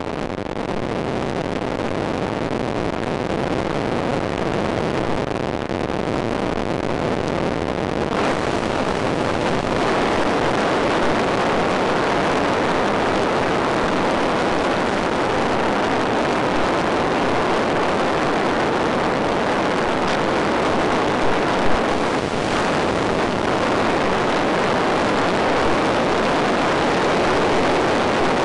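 Airflow rushing over the onboard camera of a Skywalker FPV radio-control plane in flight: a steady rush that grows gradually louder.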